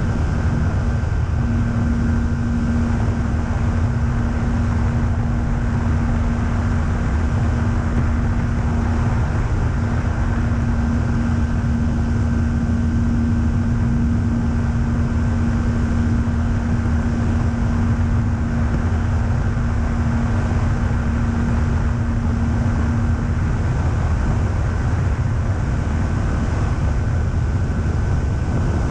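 Pipistrel Sinus motorglider in powered flight: its engine and propeller running at a steady drone with air rushing past, heard from a camera under the wing. A steady hum in the drone fades out about three-quarters of the way through.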